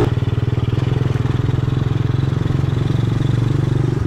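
Motorized bike's small engine running at low speed, with a fast, even pulsing beat.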